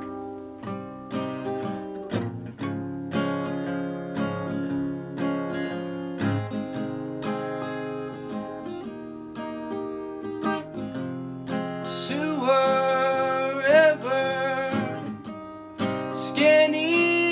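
Acoustic guitar strummed and picked through an instrumental passage. In the last third a wordless high vocal line with vibrato joins it, in two phrases.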